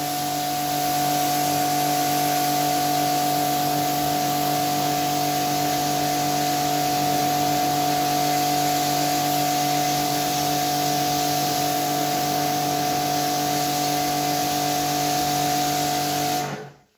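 Pressure washer running steadily: a constant motor-and-pump hum with a spray hiss over it, starting abruptly and cutting off suddenly near the end.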